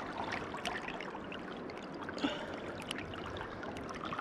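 River water running and trickling steadily, with a scatter of faint small clicks.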